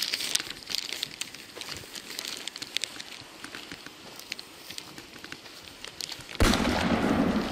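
Footsteps crunching on gravelly dirt, with many small scattered crackles. About a second before the end a sudden loud rushing noise comes in and lasts about a second.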